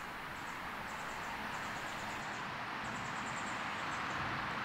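Small stream flowing steadily, a constant gentle wash of moving water. Short runs of high, thin chirps recur about once a second over it.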